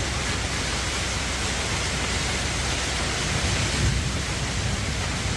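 Heavy rain mixed with hail pouring down in a storm, a steady dense hiss with a low rumble underneath.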